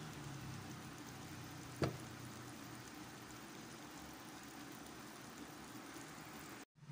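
Biko, glutinous rice in coconut milk and brown sugar, sizzling and bubbling faintly in a wide pan as it cooks down and dries out, with one sharp click about two seconds in.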